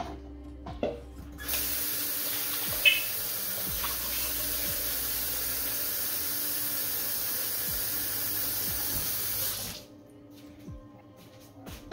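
Kitchen tap turned on and running steadily into the sink for about eight seconds, then shut off, with one sharp knock shortly after it starts.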